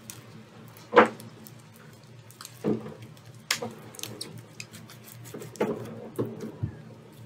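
Sticky homemade borax slime being kneaded and pulled apart by hand, giving a few short wet smacks and squelches, the loudest about a second in; the slime is still sticky. A low steady hum runs underneath.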